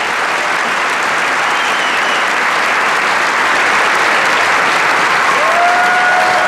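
Theatre audience applauding, a steady dense clapping. A single held note rises in near the end.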